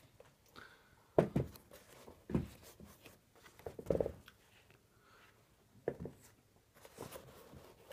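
Handling noise from a black leather trainer being picked up and moved about by hand: several short soft knocks and rubs spread through a quiet room.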